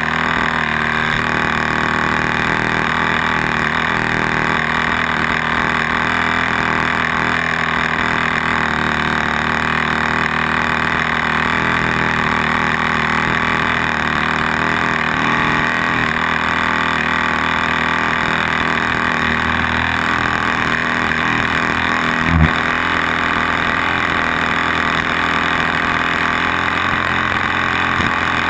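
Mechanair spark-ignition model aircraft engine running steadily close to the microphone, propeller turning. One short low thump late on.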